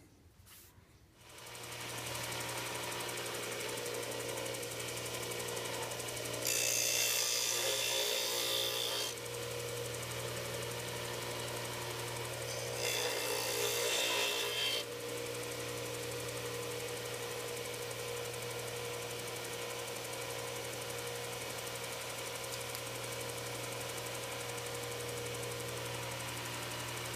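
Dayton 6x9 belt and disc sander starting up about a second in and running with a steady motor hum. Twice, for a few seconds each, a steel knife blade is ground against the sanding disc, throwing sparks, to take down a weld fill on the blade's open stop.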